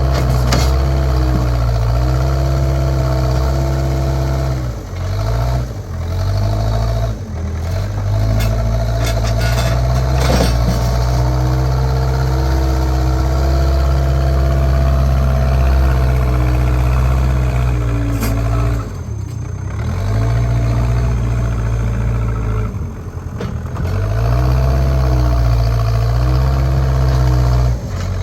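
JCB backhoe loader's diesel engine running steadily, its note dipping and recovering a few times as it takes load, with a few sharp clanks.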